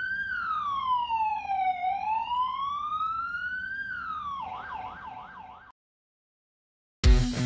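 Police-style electronic siren wailing with slow rising and falling sweeps, switching about four seconds in to a quick yelp of rapid up-and-down sweeps that fades and cuts off abruptly. After a second of silence, electric guitar music starts near the end.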